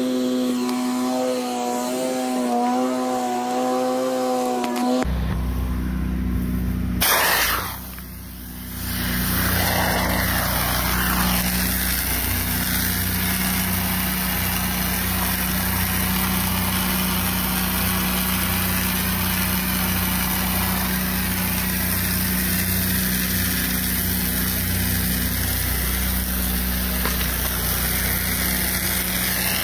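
Small gas engine of a pressure washer running steadily, with a low hum under a constant wash of noise. In the first five seconds there is a droning hum with a wavering pitch instead. A sharp knock comes about seven seconds in, then a brief dip before the steady running sets in.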